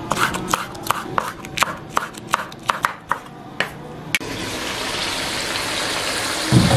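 Knife slicing green chillies on a cutting board: sharp, irregular taps about three or four a second. About four seconds in this gives way abruptly to the steady sizzle of chicken karahi gravy cooking in a wok, with a short low thump near the end.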